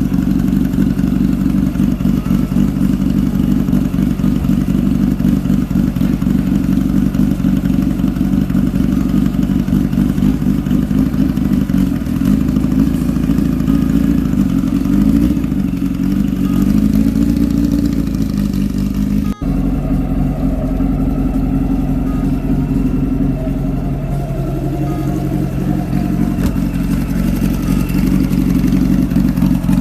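A Volkswagen drag car's engine running at idle, revved gently up and down a few times around the middle, then idling again after a brief sudden break.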